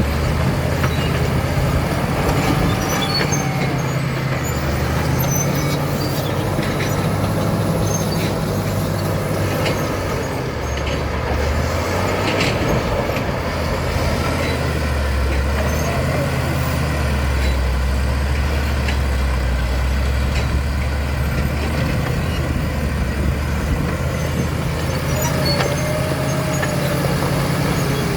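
Caterpillar D7 bulldozer's diesel engine running steadily, its low note shifting up and down now and then.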